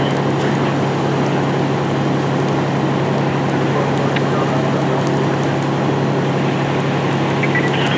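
Fire engine's diesel engine running steadily at a constant pitch, a loud unbroken drone with a low hum.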